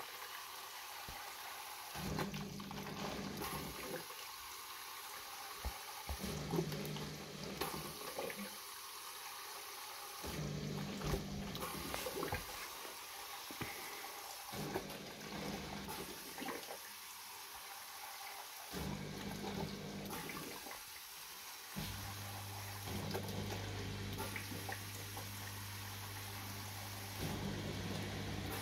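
Neff dishwasher running with water flowing through it and a low hum that cuts in and out every couple of seconds, then runs steadily near the end.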